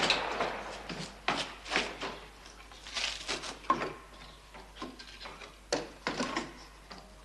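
Irregular knocks and scrapes of a barefoot person climbing out of a window frame and down onto wooden planks, hands and feet bumping and rubbing against wood and rough wall, with several sharper knocks.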